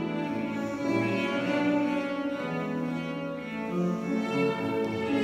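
Solo cello, bowed, playing a slow line of held notes that change pitch about once a second.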